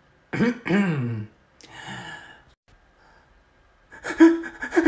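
A man's voice making short wordless vocal sounds about half a second in, then a breathy sigh, then more voiced sound near the end.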